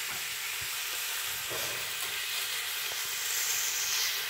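Pork and vegetables stir-frying in a pan, a steady sizzle as they are stirred, with a few light clicks. The sizzle grows louder near the end.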